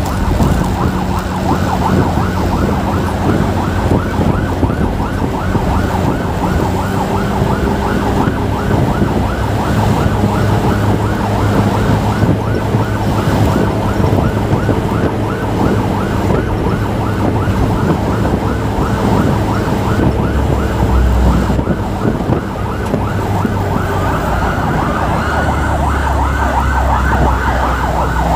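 Electronic emergency siren on a fast yelp, sweeping up and down several times a second, over a motorcycle engine running underneath. The siren grows louder near the end.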